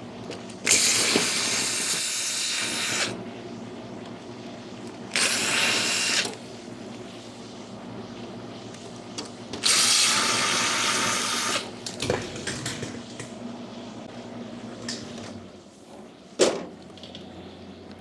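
Cordless drill-driver spinning screws out of a wine fridge's metal back panel in three runs of about one to two and a half seconds each, followed by a few light clicks and knocks.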